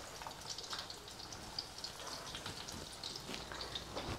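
Pancakes frying in hot oil in a pan: a steady crackling sizzle, with a few light taps of the fork and spatula turning them.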